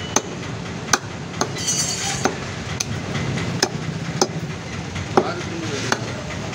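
Heavy steel cleaver chopping chicken meat and bone on a wooden stump block: about nine sharp chops, roughly one every second or less, over a steady background noise.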